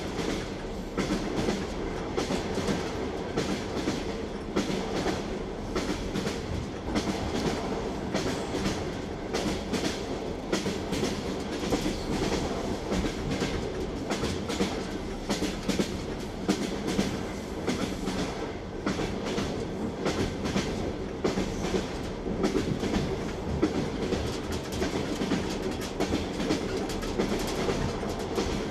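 Train wheels knocking over rail joints in a continuous clickety-clack, over the steady rumble of a moving railway carriage.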